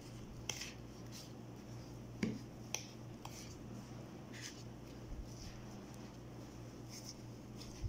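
A metal spoon stirs a thick, crumbly semolina and milk-powder batter in a plastic bowl, giving scattered light clicks and scrapes against the bowl at irregular intervals. A steady low hum lies underneath.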